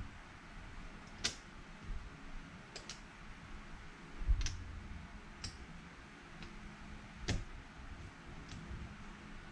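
Casino chips clicking against each other as they are picked up, stacked and set out in rows on a felt craps layout: a handful of scattered clicks, with a soft thump about four seconds in.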